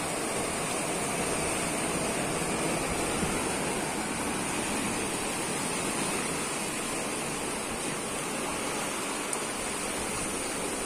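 Steady wash of sea surf on the shore, an even rushing noise.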